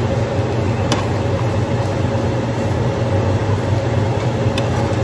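A steady, loud whirring hum with a hiss over it, and two sharp light clicks, about a second in and near the end, as a wooden spatula turns eggs in a frying pan.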